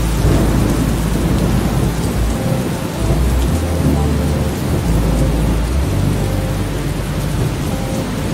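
Steady heavy rain with low thunder rumbling, the rumble swelling and easing every second or two.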